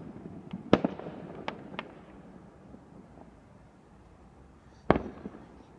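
Fireworks going off: a loud bang just under a second in, a few smaller pops over the next second, and another loud bang near the end, each with a short echo.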